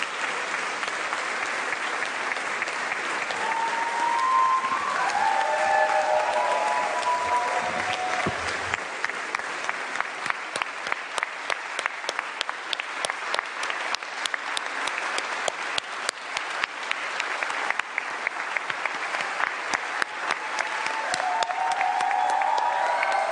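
A large crowd applauding in a hall, with voices calling out over it about a quarter of the way in and again near the end. Roughly halfway through, the scattered clapping turns into rhythmic clapping in unison, a few claps a second.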